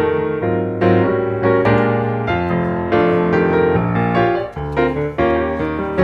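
Background piano music: notes struck about once a second over low sustained chords.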